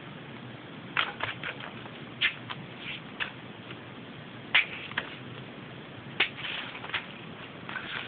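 Loose sheets of paper rustling and crinkling under a kitten's paws as it bats at a ball toy, in about a dozen short, irregular rustles and light taps, the sharpest about four and a half seconds in.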